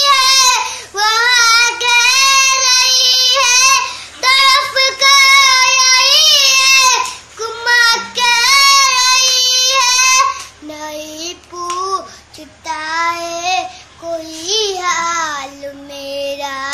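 A young boy singing an Urdu nazm unaccompanied, drawing out long high notes, then dropping to a lower, softer line about ten seconds in.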